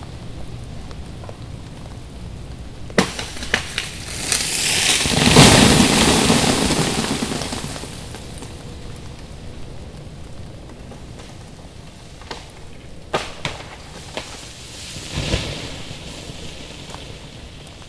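Ice-laden tree branches cracking and breaking: a few sharp snaps about three seconds in, then a long crash of a heavy limb falling through ice-coated branches that swells and fades over about four seconds. More snaps and a smaller crash follow near the end, over a steady background hiss.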